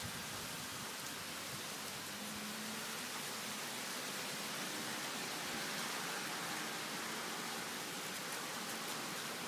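Steady hiss of the cold north bora wind blowing through the trees and rustling their leaves.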